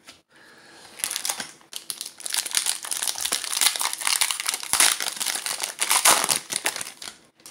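Foil wrapper of a Panini Score trading-card pack crinkling and tearing as it is opened by hand: dense, irregular crackling that starts just after the beginning, grows louder about a second in and dies away near the end.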